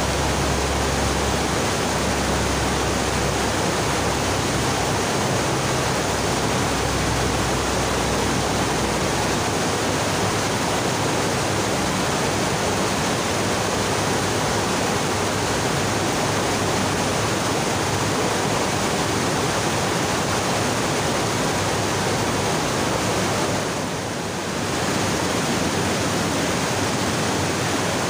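A fast mountain stream rushing over boulders in shallow rapids, a loud steady wash of white water.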